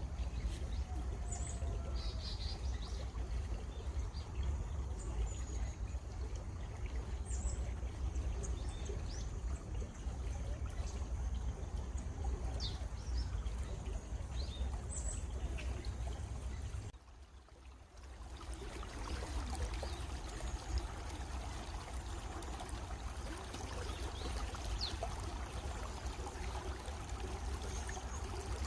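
A stream trickling and flowing steadily, with birds giving short chirps here and there above it. A little over halfway through the sound drops away for about a second, then the water comes back fuller.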